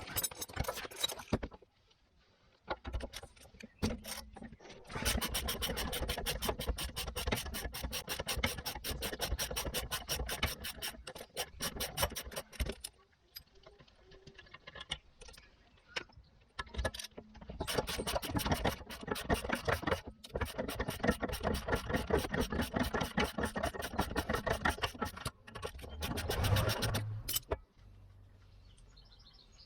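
A ratchet wrench clicking rapidly in two long runs as the 16 mm bolts holding the rear wheel hub and bearing assembly are undone, with a few knocks and scrapes between the runs.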